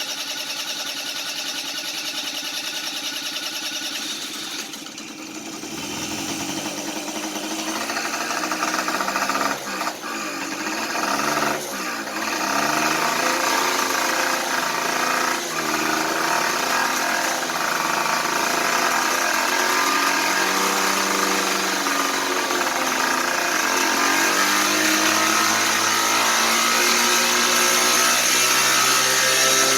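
Kymco 150cc scooter's single-cylinder four-stroke engine running rough for the first few seconds, dipping about five seconds in, then revving up and down before settling into a steadier run with its pitch slowly climbing. This is the engine coming to life after its empty carburetor bowl has refilled.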